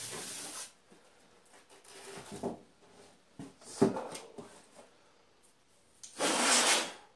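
Cardboard box and foam packing handled by hand: rustling and scraping with a short knock about four seconds in and the loudest rustle near the end.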